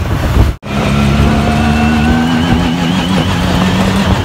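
Side-by-side off-road vehicle's engine running under way, heard from the seat over low rumble, its pitch climbing slowly as it speeds up. The sound cuts out for an instant just over half a second in.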